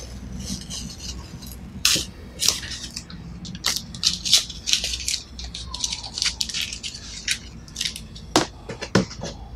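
Peeled masking tape being crumpled and handled: many short, crisp crinkling bursts, with two sharper knocks near the end.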